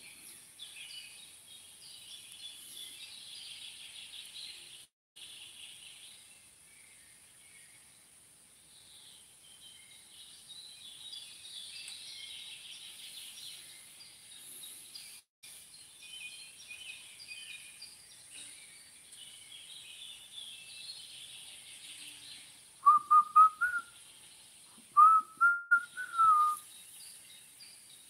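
Small birds chirping steadily in the background over a faint high hiss. Near the end come two loud whistled notes, the first short and rising, the second longer and held.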